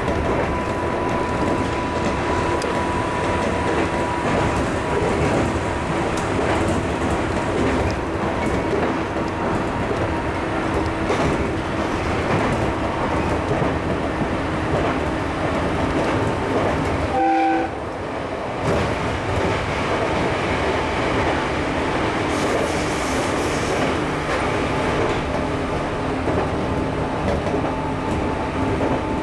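A JR 211 series electric train running along the line, heard from the cab: a steady rumble of wheels on rail with a faint steady whine over it. About two-thirds of the way through there is a short pitched sound and a brief drop in level.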